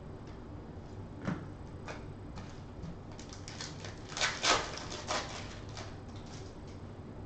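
A foil trading-card pack being torn open and its wrapper crinkled, a burst of crackling tears loudest about four seconds in, after a few light clicks of cards being handled.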